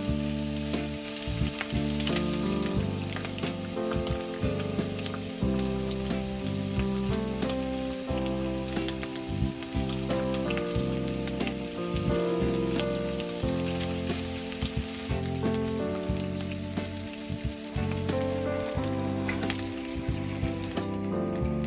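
Food sizzling as it fries in a pan, a steady crackling hiss, under background music with held notes that change about every second.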